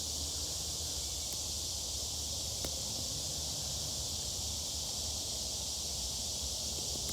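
Steady chorus of insects, a continuous high-pitched hiss, over a low rumble, with one faint click about two and a half seconds in.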